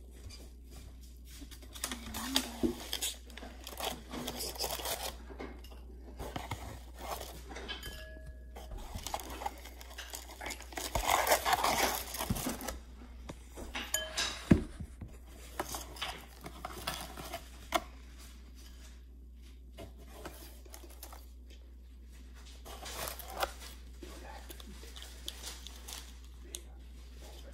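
Paper and foil takeout packaging being handled and unwrapped, rustling and crinkling in irregular spells, with scattered knocks and clinks against a plate. The longest, loudest rustle comes a little before halfway, followed by a single sharp click.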